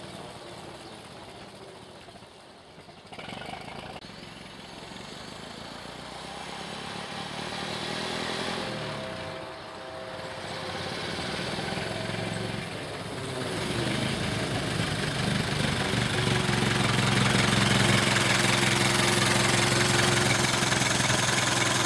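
Ford Model T four-cylinder side-valve engine running as the bare rolling chassis drives along. It is faint at first, shifts in pitch around the middle, and grows much louder as the car comes close, loudest in the last few seconds.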